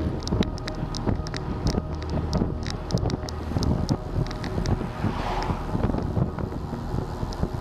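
Wind buffeting the microphone over a steady low rumble, with scattered light clicks and ticks.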